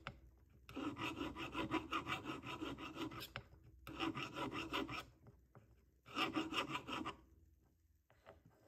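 Hand file rasping quickly back and forth across the edge of a metal ring band, in three runs of fast strokes with short pauses between them. A few faint taps follow near the end.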